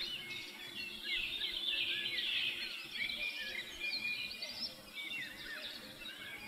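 Several birds chirping and calling at once, a dense chorus of short rising and falling notes.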